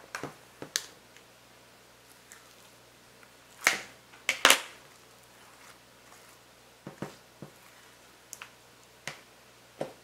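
Slime making short wet clicks and pops as it is pressed and tipped out of a glass container onto a table, with the loudest pops in a cluster near the middle.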